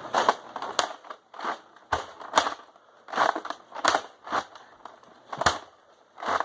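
Foam-dart blasters being worked and fired: about a dozen sharp, irregularly spaced plastic clacks and knocks.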